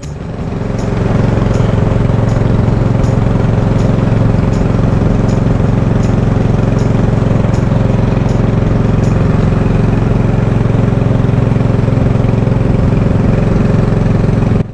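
A small engine running loud and steady at a constant speed, rising over the first second and then holding an even drone.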